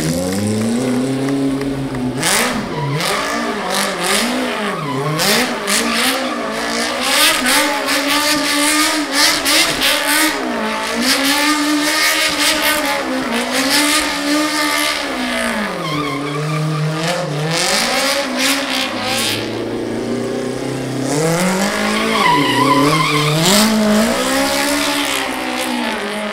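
Stunt Smart car's engine revving up and down again and again while its tyres spin and squeal in a smoky burnout.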